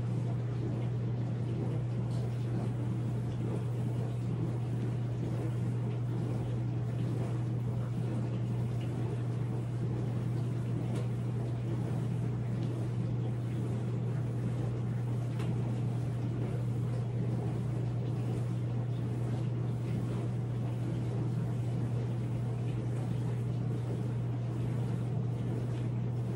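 A steady low hum, unchanging in pitch and level, with a faint hiss above it.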